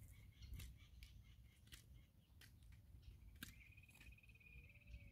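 Faint, scattered clicks and snips of a horse's hoof being trimmed with hand tools, over a low rumble. A faint steady high tone comes in about three and a half seconds in.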